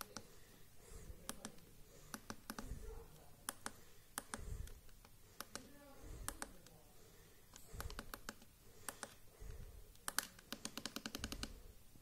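Plastic keypad buttons of a Maxcom MM471 feature phone clicking as they are pressed. Single presses come a second or two apart, then a quick run of about eight clicks near the end.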